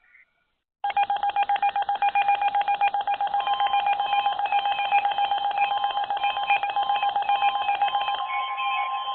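Canadian Alert Ready emergency attention signal: a loud, rapidly pulsing electronic alert tone that alternates between pitches. It starts about a second in, runs about seven seconds, then gives way to a steadier single tone near the end.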